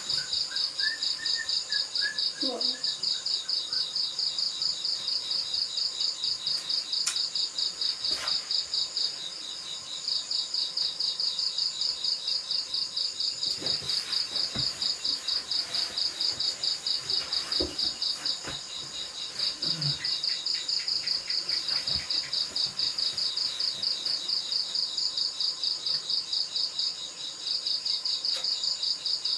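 Insects chirping, cricket-like, in a fast high-pitched pulsing rhythm that keeps on steadily, breaking off briefly three times.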